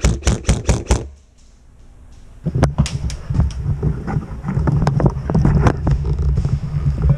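Airsoft rifle firing a quick string of shots, about six a second, for the first second. After a short pause, a low rumble of movement and gear handling begins, with scattered sharp clicks of more shots.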